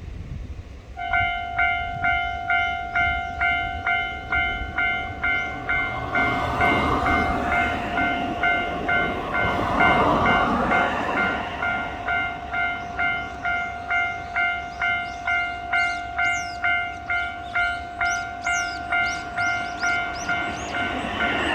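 Japanese railway level-crossing alarm ringing in a steady rhythm of about two strokes a second, starting about a second in. A train goes through the crossing with a rumble that swells twice, and thin high squeals come in over the last few seconds.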